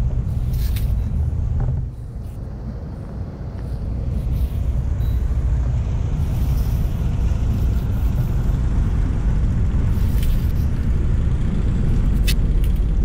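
Strong wind buffeting the microphone: a steady low rumble that eases briefly about two seconds in, with a couple of sharp clicks near the end.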